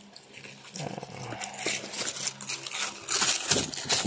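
Cardboard box and plastic wrapping of a new air filter rustling and crinkling as the filter is unpacked, with irregular crackles that grow busier near the end.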